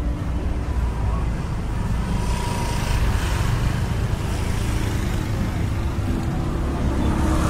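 Motor scooters riding past, their small engines running over a steady low traffic rumble.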